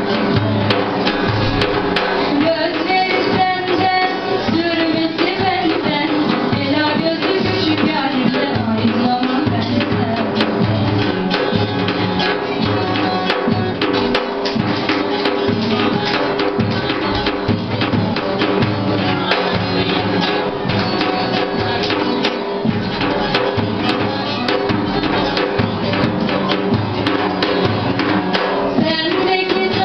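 Turkish folk music played on a bağlama (long-necked saz), its plucked melody over a steady beat on a large frame drum with jingles, with a children's choir singing along at times.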